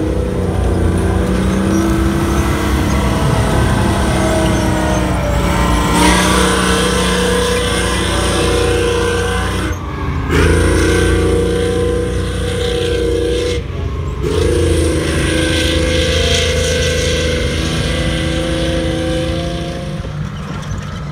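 Tracked tanks driving on a dirt course, mainly a British Chieftain main battle tank with its Leyland L60 multi-fuel engine: heavy steady engine noise with a pitched whine from the drive and running gear over it. The sound breaks off briefly twice where clips are cut together.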